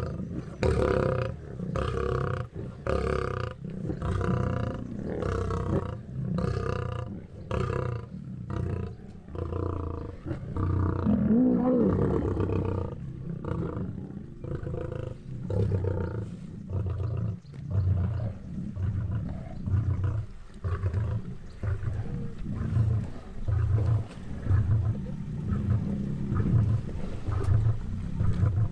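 Lions growling while they feed together at a zebra kill: a steady run of low growls, one every second or so, with a longer drawn-out growl about eleven seconds in.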